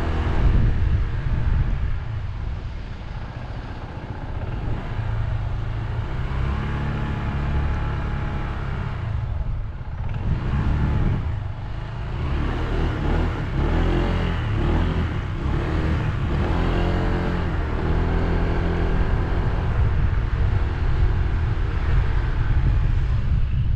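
Motorbike engine running on the move over a steady low rumble, its pitch rising and falling with the throttle, most clearly in the middle stretch.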